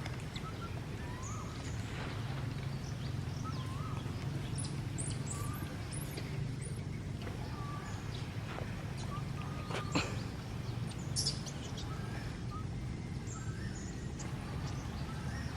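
Outdoor ambience of birds chirping: scattered short rising chirps and higher peeps over a steady low rumble, with one sharp click about ten seconds in.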